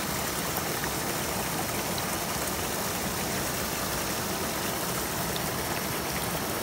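Shallow rocky stream running steadily over stones, heard right at the water's surface as a close, even rush of water.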